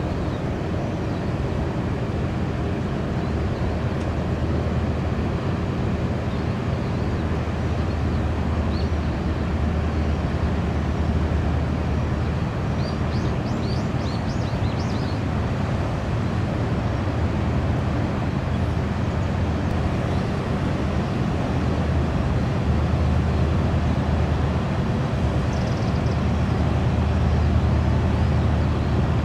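Steady low drone of a Japan Coast Guard patrol ship's engines running at speed past the shore, growing slightly louder near the end. A few brief high chirps come about halfway through.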